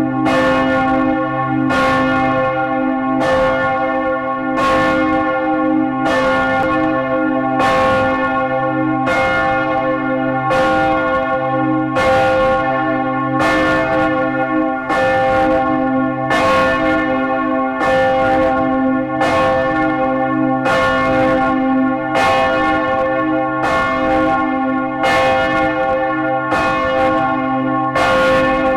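Large swinging church bells of St. Catherine's in Gdańsk, among them the 2.8-tonne "Imię moje Katarzyna" bell tuned to B, tolling as a funeral knell, heard close up inside the belfry. A clapper stroke comes about once a second over a deep, steady hum from the bells.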